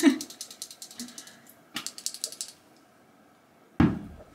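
Rapid ratcheting clicks from a twist-up eyeliner pencil being wound: a fast run of clicks, a second shorter run, then a single louder thump near the end.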